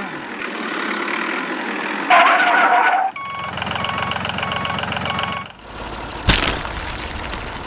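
A small engine or motor running in several abruptly cut segments. From about three seconds in there is a stretch of regular beeping, and a single sharp knock comes about six seconds in.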